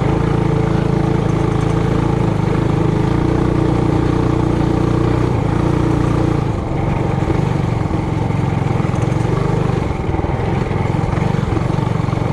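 Trailmaster Hurricane 200X mini bike's small four-stroke engine running steadily under throttle while riding on a trail. The note wavers briefly about two-thirds of the way through, then runs on.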